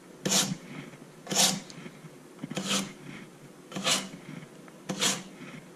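Chef's knife drawn through a handheld pull-through knife sharpener: five short rasping strokes, about one a second, honing a dull blade.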